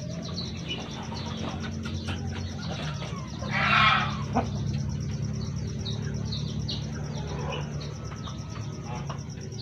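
Chickens calling: a run of short, high chirps with one louder, harsher call about three and a half seconds in, over a steady low hum.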